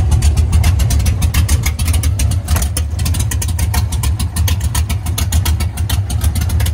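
1991 Chevrolet S10 drag truck's engine idling, with a deep note and a rapid, uneven pulsing from the exhaust.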